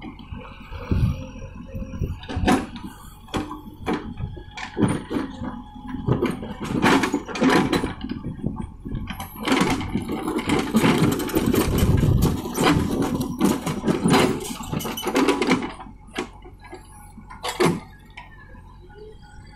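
JCB 3DX backhoe loader at work: its diesel engine running with a steady whine, under many knocks and clanks and a dense stretch of scraping noise from about ten to sixteen seconds in.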